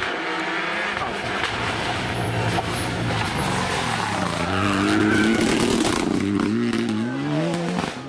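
Renault Clio rally car passing close at competition speed and accelerating away. Its engine note climbs in pitch from about halfway in, drops briefly at a gear change, and climbs again.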